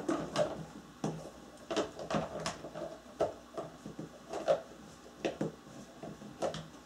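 Irregular plastic clicks and knocks, a dozen or so spread unevenly over several seconds, as a doll is handled and knocked against a pink plastic toy car.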